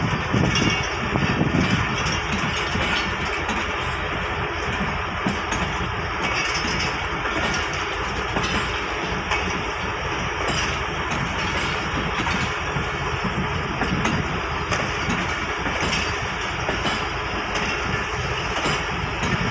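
Pakistan Railways passenger coaches rolling past close by at steady speed: a continuous running noise of wheels on rail, with light clicks of the wheels over the track.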